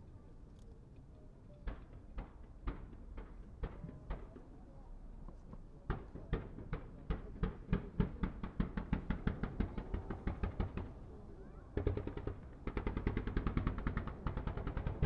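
Fireworks from a digital star mine, electronically fired in a timed rapid sequence, launching with sharp pops: a few scattered shots at first, then an even rapid run of about four or five a second. After a brief pause near the end comes an even faster volley.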